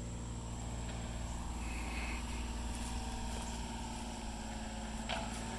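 Mini excavator engine running steadily at idle, a low even hum. A single short knock comes near the end.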